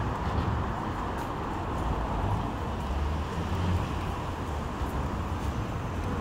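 Steady city street ambience: an even hum of road traffic with no single vehicle standing out.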